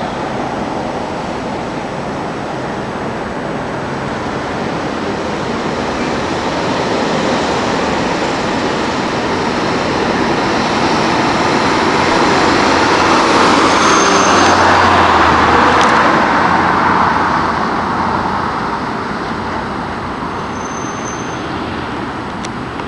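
Road traffic noise, with a car driving past that swells to its loudest a little after the middle and then fades away.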